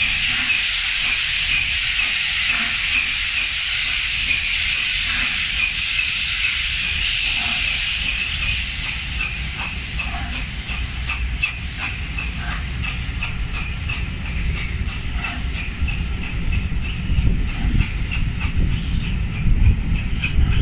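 Steam hissing loudly from the LNER A4 steam locomotive 'Union of South Africa' as it pulls away. About nine seconds in the hiss fades, and the passing coaches' wheels click quickly and regularly over the rail joints, with a low rumble building near the end.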